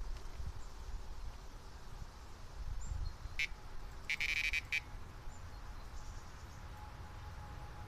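Electronic carp bite alarm sounding a short beep, then a longer beep of about half a second a moment later, then another short one, over a low rumble of wind on the microphone.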